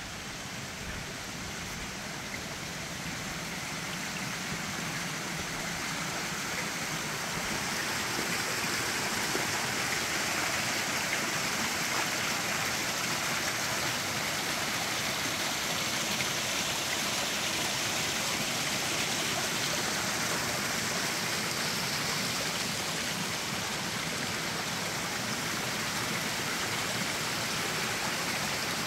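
Waterfall and creek water rushing, a steady roar that grows louder over the first several seconds and then holds steady.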